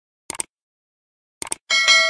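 Subscribe-animation sound effects: two mouse-click sounds, each a quick double click, then near the end a notification bell ding that rings on.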